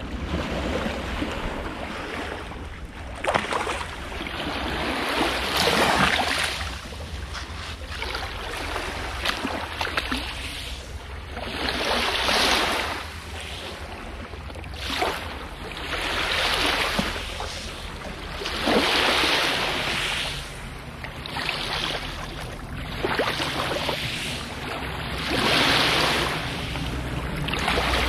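Lake waves washing onto the shore, each rush swelling and falling away every two to three seconds, some with a sharper splash, over a steady low wind rumble on the microphone.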